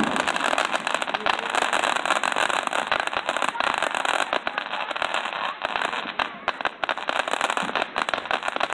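Ground fountain firework spraying sparks: a loud, steady hiss thick with fine crackling.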